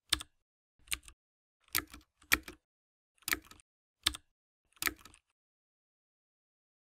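Seven single key strikes of typing, spaced unevenly over about five seconds, each a sharp click.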